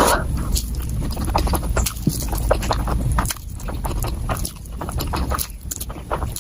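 Eating sounds played back sped up: a rapid run of chewing and crunching clicks over a low rumble.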